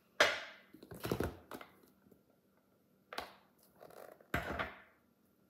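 Kitchen handling sounds: a glass measuring cup set down on a glass cutting board, then clunks and scrapes as a plastic powdered-sugar container is opened and dipped into. Four or five short, sharp knocks, spaced out over a few seconds.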